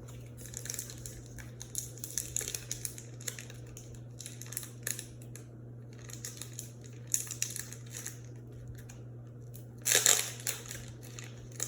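Foil wrapper of a Pokémon card booster pack crinkling and tearing as it is opened, with a louder rip about ten seconds in. A steady low electrical hum sits underneath.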